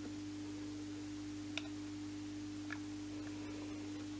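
Steady low electrical hum from a bench of powered-up electronics, with a couple of faint clicks as the pocket oscilloscope's buttons are pressed.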